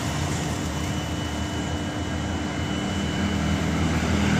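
Passenger train coaches rolling past on the track, a steady rumble with a low hum and no breaks.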